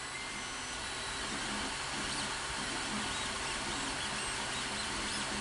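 Creality Ender 3 Pro 3D printer running mid-print: a steady fan hiss, with a few brief rising-and-falling whines from the stepper motors as the print head moves.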